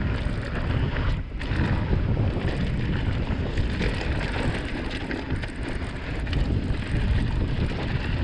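Steady wind buffeting the microphone of a camera riding on a moving mountain bike, with tyres running over a dirt trail and small clicks and rattles throughout.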